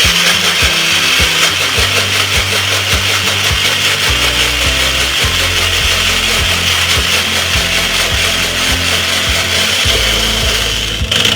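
Electric kitchen blender running steadily, grinding garlic, ginger and onion into a paste, then switching off near the end.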